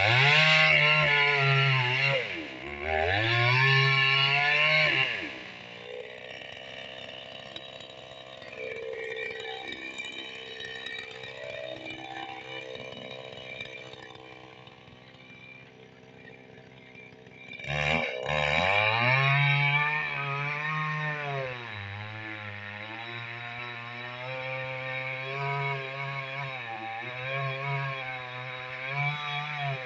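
Chainsaw engine revved to full throttle twice, then dropping to a low idle for about ten seconds. It cuts off for an instant, then runs up again and holds at high speed, its pitch sagging and recovering as it cuts through the wood of a big tree.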